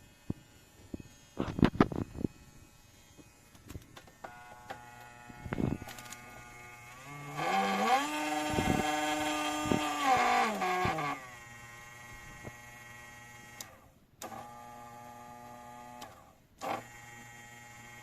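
Small electric nail drill motor running with a whine, sped up to a higher pitch for about three seconds and then slowed back down to a lower speed. It cuts out briefly twice near the end. A burst of clicks and knocks comes about two seconds in.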